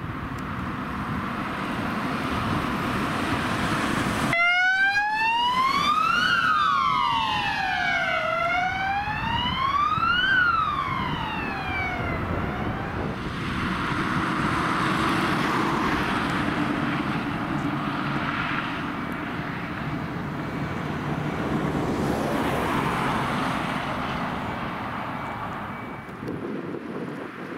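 Ambulance siren wailing, gliding slowly up and down twice in pitch; it starts abruptly about four seconds in and ends about twelve seconds in. Passing road traffic and van engine noise fill the rest.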